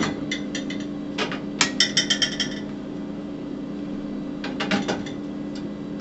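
Plates clinking against each other and the wire dishwasher rack as they are handled, with a quick run of ringing clinks about two seconds in and a few more near the end, over a steady low hum.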